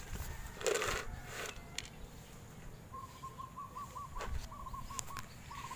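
A bird calling in a quick run of short, repeated chirping notes from about three seconds in. Near the start, a couple of brief scuffing rustles are louder than the calls.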